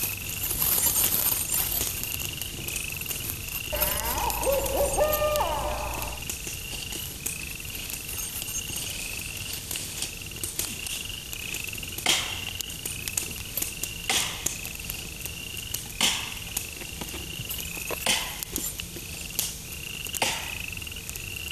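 Night-time cricket chirping: a short high chirp repeating about twice a second. About four seconds in comes a brief wavering call, and in the second half sharp cracks sound about every two seconds.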